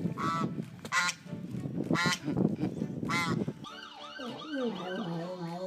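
An animal's loud honking calls, repeated about once a second. In the last two seconds a different sound takes over: a fast, repeating warble over a slowly falling tone.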